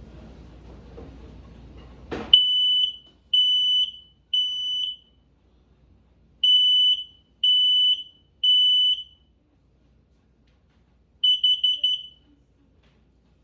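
Kidde combination smoke and carbon monoxide alarm sounding its test: a loud, high piezo beep in the three-beep smoke pattern, two rounds of three half-second beeps, then a quick stutter of short beeps near the end. A click comes just before the first beep.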